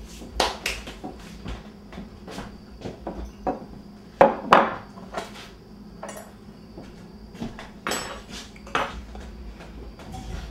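Kitchen clatter: dishes and utensils knocking and clinking on a counter, a scatter of short knocks with the loudest pair about four seconds in.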